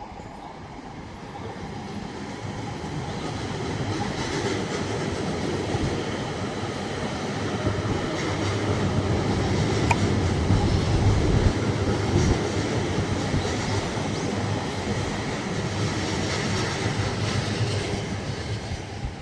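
E7 series Shinkansen train passing at speed, its rumble building to a peak about halfway through and fading near the end. A high squealing rides over it, which the uploader suspects is an abnormal noise, or else wheel flange squeal.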